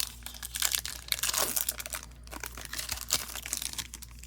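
Crinkling and rustling of a trading-card pack's foil wrapper and the cards being handled, with dense small crackles throughout.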